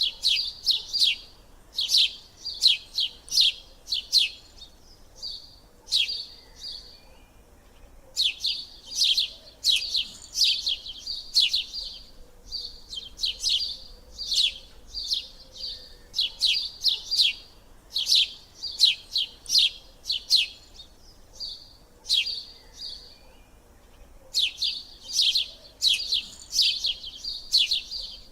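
A small bird chirping rapidly, several sharp, high chirps a second, in runs broken by short pauses every few seconds.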